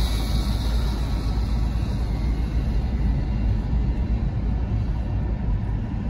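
Steady low rumble of a car driving at speed, road and engine noise heard from inside the car.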